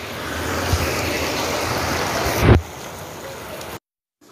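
Heavy rain pouring onto a flooded street: a loud steady hiss, with wind buffeting the microphone. It drops away sharply about two and a half seconds in and breaks off to silence briefly near the end.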